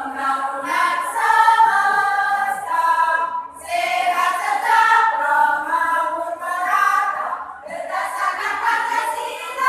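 A choir singing in held notes, in phrases with short breaks between them, about a third of the way in and again near the end.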